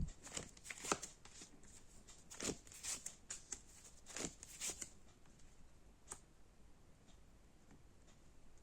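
Faint handling of tarot cards: a scatter of soft swishes and snaps as the cards are shuffled and laid out, then one more click about six seconds in.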